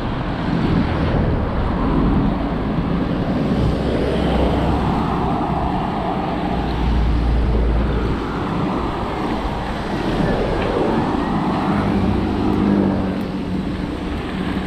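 Wind rushing over the microphone of a cyclist's camera while riding along a road, with motor traffic going by; the low rumble swells about six to eight seconds in.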